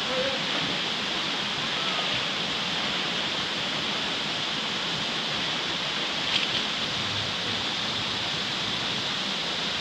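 Small waterfall pouring into a rock pool: a steady rush of falling water, with one short sharp knock about six seconds in.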